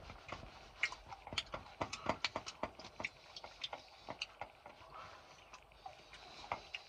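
A person chewing a crispy, biscuit-like chocolate close to the microphone: an irregular run of small crunching clicks, thinning out over the last few seconds.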